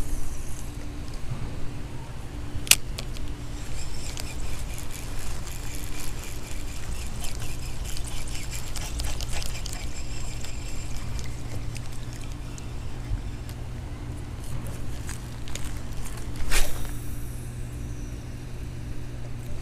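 Spinning reel being cranked to retrieve a lure, a faint fine whirring of its gears for several seconds, over a steady low hum. A light click about three seconds in and a louder sharp knock near the end.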